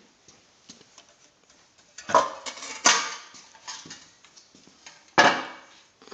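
Metal clunks and rattles as a UTV front bumper carrying a winch on its mounting bracket is turned over and set down: three louder knocks with a brief ringing tail, about two seconds in, a second later and about five seconds in, with lighter clicks between.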